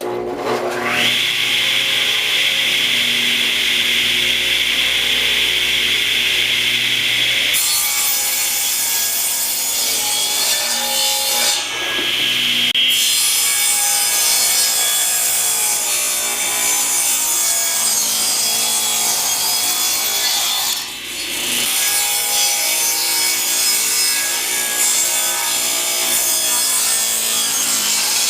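Power saw motor spinning up with a rising whine into a steady running tone, then the blade cutting through wood to make small wedges, a rougher, fuller sound with two brief dips between cuts.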